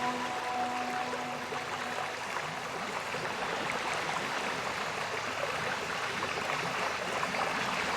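Water running steadily over a small decorative fountain waterfall, an even splashing trickle.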